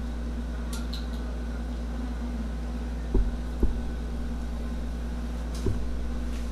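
Steady low hum of running room machinery, with two soft thumps a little after three seconds in and another near six seconds, as a cloth arm sling is untied and handled.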